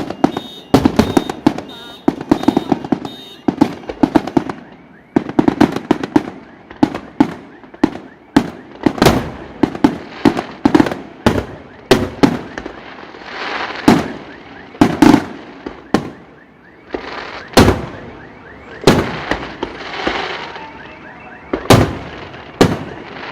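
Aerial fireworks shells bursting in rapid, irregular succession, sharp booms several a second at times, with stretches of crackling between the bursts.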